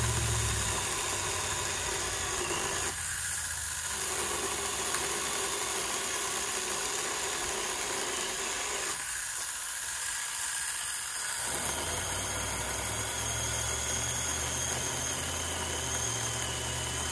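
A motor running steadily, its deeper part dropping out briefly twice.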